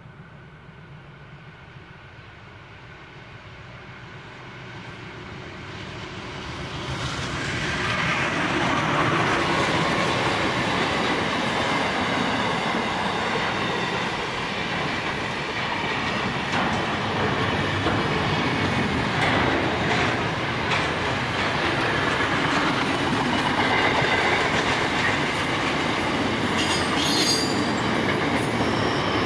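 Freight train led by two NR class GE diesel-electric locomotives approaching, growing steadily louder over the first eight seconds or so as the locomotives draw level and pass. The container wagons then roll by with a steady rumble, wheel clatter over the rail joints, and a thin high wheel squeal near the end.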